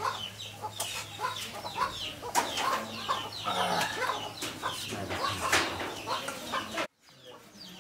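Chickens clucking, many short calls in quick succession, with a faint steady hum beneath. The sound cuts out abruptly about seven seconds in.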